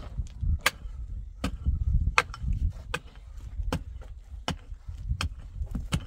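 Rhythmic hard blows, about eight of them, one roughly every three-quarters of a second, over a low rumble.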